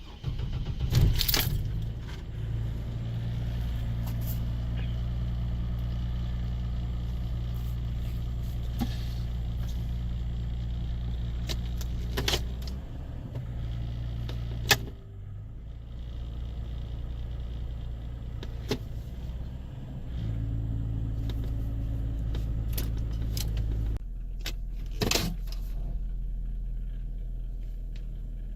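Chevy Trailblazer's 4.2-litre inline-six started and running with a steady low droning hum. It is broken by a few short clicks and key jingles. The hum dips about halfway through and settles lower and deeper near the end.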